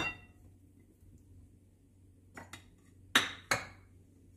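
A plate clinks once against a glass mixing bowl with a brief ring, then a few soft knocks and scrapes as a spatula pushes boiled potato cubes off the plate into the bowl, the last two the loudest.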